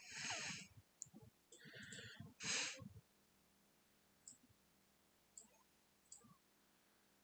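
Computer mouse clicking, three faint single clicks spread over the later seconds. Before them come three short noisy sounds in the first three seconds, the loudest about two and a half seconds in.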